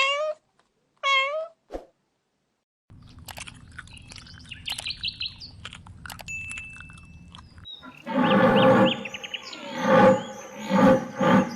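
Domestic cat meowing twice, short falling calls in the first second and a half. After a short gap, faint high bird chirps come over a low background, and from about eight seconds a much louder, busier pitched sound takes over.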